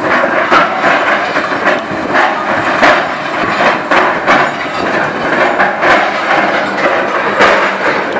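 Hyundai tracked hydraulic excavator demolishing a concrete building: a steady engine-and-machinery clatter with irregular clanks and knocks of metal and rubble.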